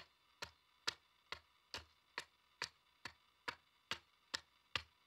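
Small axe chopping at the lower end of an upright wooden pole with short, light strokes: a sharp chop a little more than twice a second, in a steady, even rhythm.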